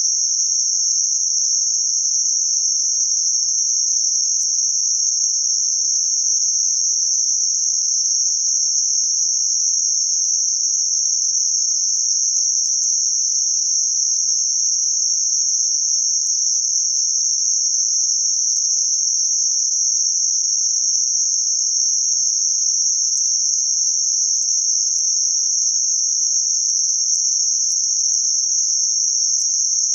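Electronically generated band-limited noise centred around 6051 Hz: a steady, high-pitched hiss that does not vary.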